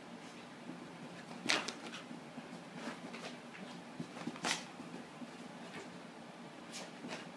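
A Canaan dog moving about on carpet: a few short scuffling noises, the loudest about a second and a half in and again about four and a half seconds in, over a low steady hum.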